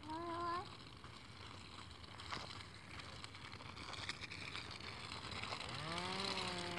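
A young child's short, high vocal sound at the very start. Then faint rustling, and near the end a man's low, drawn-out voice.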